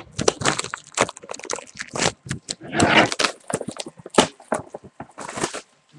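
Panini Preferred trading-card box being handled and opened: a quick, irregular run of crinkling, clicking and scraping of cardboard and packaging.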